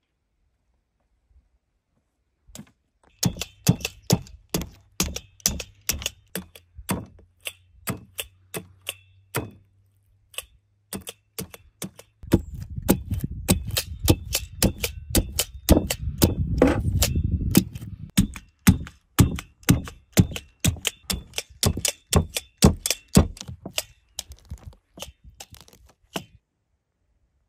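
Spring-loaded needle meat tenderizer pressed again and again into a raw sheep carcass on a wooden board: a series of sharp clicks, about two a second, starting a few seconds in. A low rumble sits under the clicks for a few seconds in the middle.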